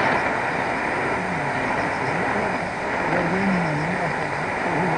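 Shortwave radio reception of Tajik Radio 1 on 4765 kHz: a faint, wavering broadcast voice nearly buried under steady static hiss.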